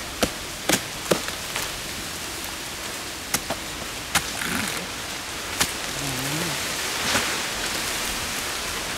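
Machetes chopping into the fibrous trunk of a felled coconut palm: sharp strikes at irregular intervals, several in the first second and a half and a few more spread through the middle, over a steady hiss.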